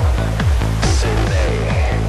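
Electronic dance music with a steady, fast kick-drum beat over a held bass line.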